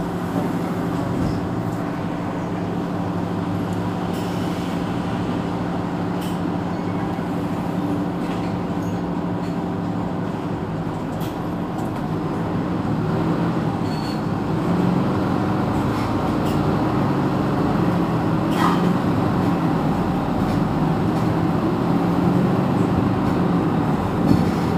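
Diesel engine of a Mercedes-Benz Citaro C2 city bus idling at a stop, a steady low hum. About halfway through it grows a little louder and its note starts to waver.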